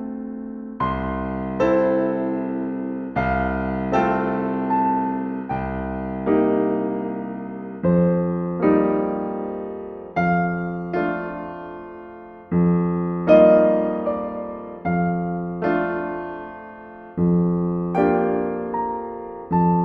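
Slow, calm solo piano music: soft chords struck every one to two and a half seconds, each left to ring out and fade.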